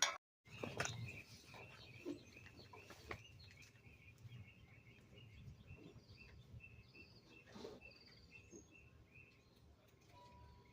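Faint outdoor background with small birds chirping over and over in short high notes, over a low steady rumble. A steady tone comes in near the end.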